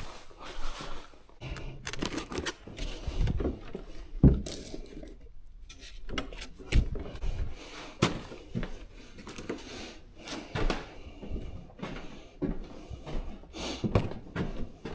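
Irregular knocks, clicks and rustles of objects being handled in a small room, the loudest a sharp knock about four seconds in.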